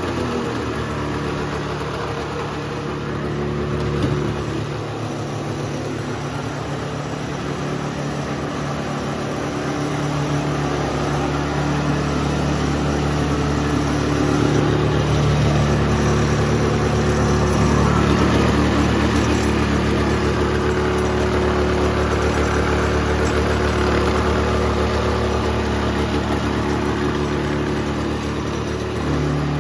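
1978 Polaris Cobra 440's two-stroke twin engine idling steadily with its exhaust fitted, which the owner says sounds a lot better.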